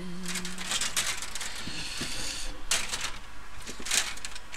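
Rummaging through boards and parts on a workbench: irregular clicks, knocks and clatters, with a stretch of rustling about a second in.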